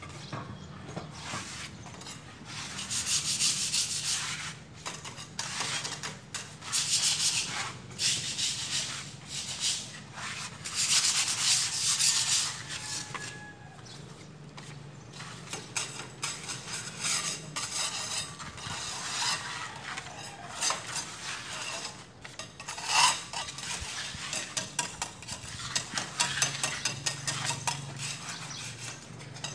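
Trowels scraping skim coat onto a concrete wall in repeated, irregular rasping strokes.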